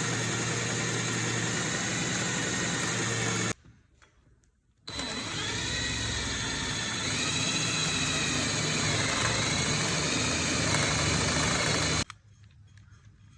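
Electric power drill boring into a wooden block for a carpenter bee trap, in two runs: a whirring run of about three and a half seconds, a brief pause, then a longer run whose pitch dips as the bit loads up, cutting off suddenly near the end.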